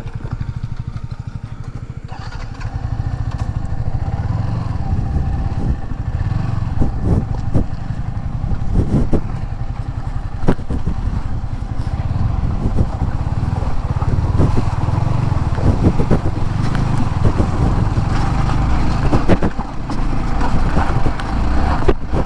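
Motorcycle engine running while riding over a rough, broken track, with scattered knocks and clatter from the bumps.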